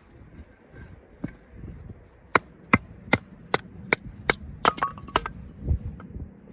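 Hatchet or blade striking firewood in a quick, even series of about ten sharp chops, two to three a second and closer together at the end, followed by one duller thump: splitting firewood into smaller pieces.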